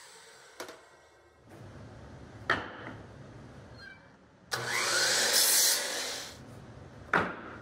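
Sliding miter saw running and cutting through a wooden furring strip. The loudest cut comes about halfway through and lasts nearly two seconds. Short sharp knocks come before it and near the end.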